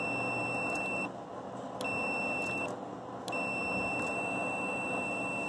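Digital multimeter's continuity beeper sounding a steady high beep, cutting out twice for under a second and coming back, as the power feed's limit switch contacts close and open while the handle is moved.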